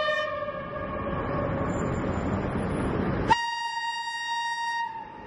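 Train horn sounding twice over a steady background rumble. The first blast holds one note, sagging slightly in pitch as it fades out. About three seconds in, a second, higher-pitched blast starts abruptly, is held for about a second and a half and cuts off.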